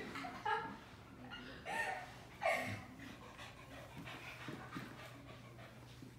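A dog panting, with a few short pitched cries about two to two and a half seconds in.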